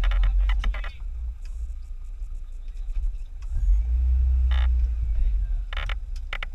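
Maruti Suzuki Gypsy's engine running as the 4x4 moves forward off-road, a low rumble that swells louder for a second or so about three and a half seconds in.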